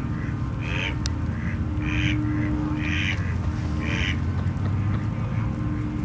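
Mallard quacking four times, about a second apart, over a steady low rumble.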